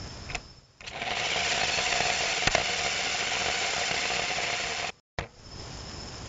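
Jumping Sumo robot's small electric drive motors and gears whirring steadily with a faint whine as it drives and turns on asphalt. The whir cuts off suddenly about five seconds in, leaving a fainter steady hiss.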